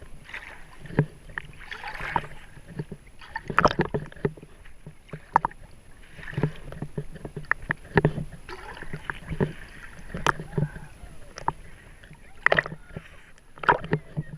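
Water splashing and sloshing, with many irregular sharp knocks and clatters.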